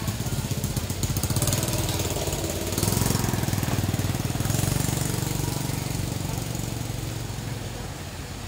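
Small motorbike engine running close by, getting louder about three seconds in and fading away near the end.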